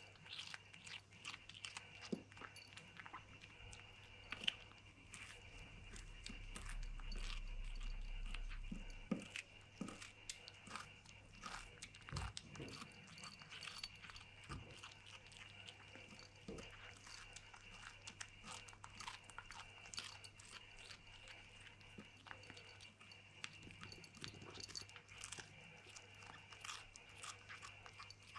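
A kitten chewing and biting a piece of juicy melon: a steady run of small, wet chewing clicks and crunches. A low rumble comes in for a few seconds near the middle.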